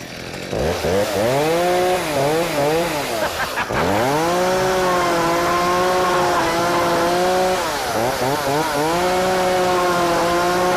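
Chainsaw engine revving up about half a second in, with its pitch surging and dipping a few times and cutting out briefly near four seconds, then held at high revs for several seconds at a stretch.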